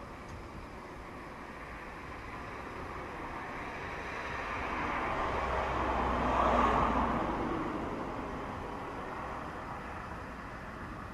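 A road vehicle driving past, its tyre and engine noise swelling to a peak about six or seven seconds in and then fading away, over steady traffic background.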